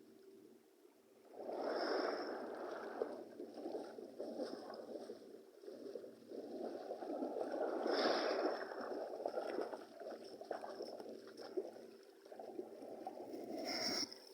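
Sea water splashing and churning in uneven surges, swelling about a second and a half in and loudest again around eight seconds in.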